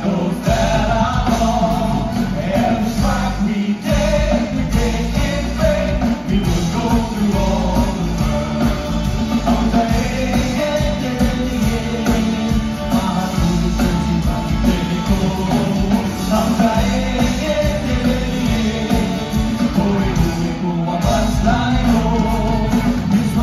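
Singing over an upbeat rock-style band with drums and bass, played steadily and loud.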